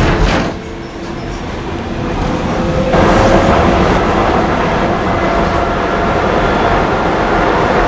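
Docklands Light Railway train running on its track, heard from inside the carriage. The noise eases for a couple of seconds, then about three seconds in it swells and the traction motor's whine rises in pitch as the train picks up speed.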